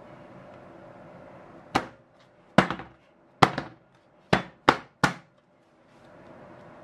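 Metal baking pan filled with brownie batter rapped against the counter: six sharp knocks. The first three come a little under a second apart and the last three come quicker.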